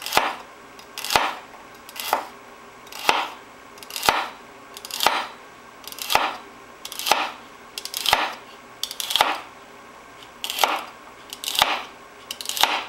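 Kitchen knife slicing through celery stalks onto a cutting board, about once a second at an even pace; each cut is a crisp crunch ending in a knock on the board.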